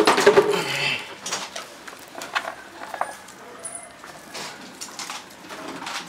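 Sliced onions being handled and separated into rings on a large metal tray: light clicks and taps against the metal, busiest in the first second and sparser after.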